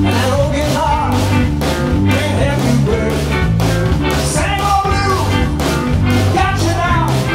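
Live rock-and-roll band playing: electric guitar, bass guitar and a drum kit keeping a steady beat, with a man's lead vocal over it in places.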